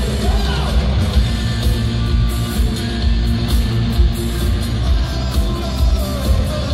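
A live rock band playing loud in an arena: electric guitar, bass guitar and drums with a heavy low end.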